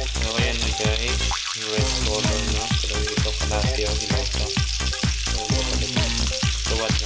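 Pork sizzling in a ridged grill pan, with background music with a steady beat and bass playing over it.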